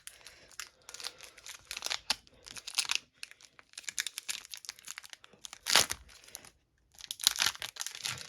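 A foil trading-card pack wrapper being torn open and crinkled: irregular bursts of rustling and tearing, with one louder burst a little before six seconds in and a short pause just after it.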